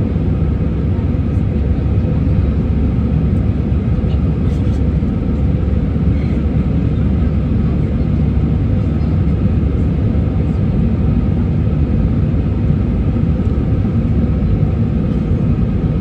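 Steady, loud rumble of an airliner's engines and airflow heard inside the passenger cabin in flight.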